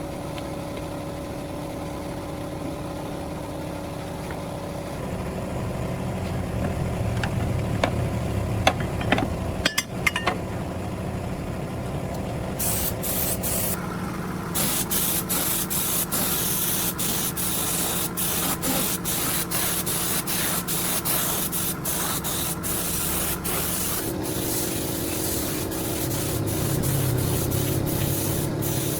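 A steady machine hum with a few clicks, then from about 12 seconds in a spray hissing in many quick short bursts over it.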